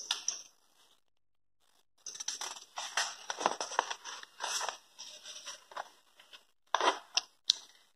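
Notebook paper pages being turned and handled, rustling and crinkling. The rustle starts about two seconds in and ends with a few short, sharp flicks of paper.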